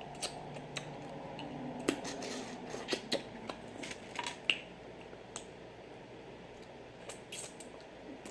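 Close-miked eating sounds: wet chewing and lip smacking with a scatter of short sharp clicks, busiest in the first five seconds and then sparser.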